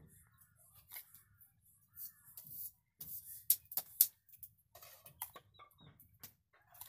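A steel spoon scooping granulated sugar from a steel bowl and sprinkling it onto rolled dough, with scattered light clicks and scrapes of metal on metal. A few sharper clinks of the spoon on the bowl come about halfway through.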